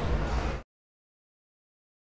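The tail of a man's speech, cut off abruptly about half a second in, followed by dead digital silence.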